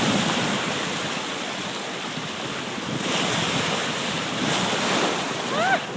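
Ocean surf washing in, with wind buffeting the microphone; the surf swells at the start and again about halfway through. A brief high-pitched voice sounds near the end.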